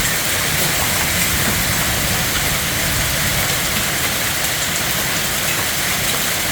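Heavy rain and hail pelting down in a violent storm: a dense, steady hiss of drops and hailstones striking surfaces, with scattered sharper hits.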